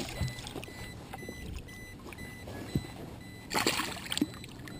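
Hooked largemouth bass splashing at the water's surface beside the boat, with low water sloshing and small knocks. A brief louder burst of noise comes about three and a half seconds in.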